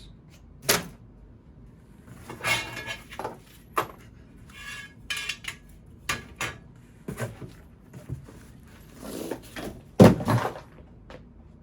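Fire alarm strobes and their covers clattering and knocking together as they are handled, a run of irregular clinks and knocks with the loudest about ten seconds in.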